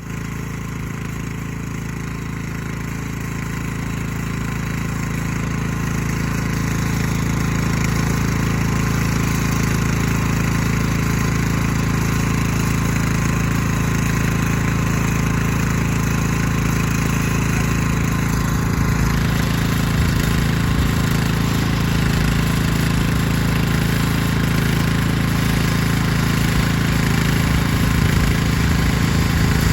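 Chainsaw engine running steadily at high revs, growing louder over the first few seconds and then holding an even pitch.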